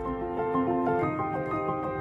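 Soft background music: a slow melody of held notes.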